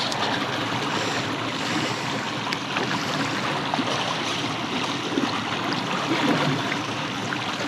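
Steady rush of river water around a boat, with a few faint clicks.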